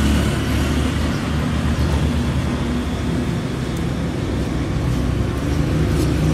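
Road traffic with a motor vehicle engine running close by: a steady low rumble that eases a little in the middle and swells again near the end.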